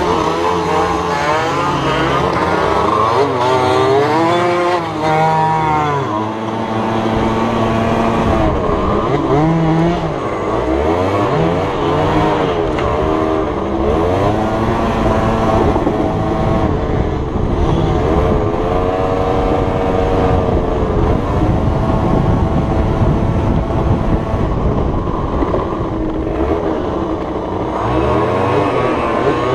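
50cc two-stroke dirt bike engine revving up and down repeatedly while riding, pitch climbing and dropping with each throttle change.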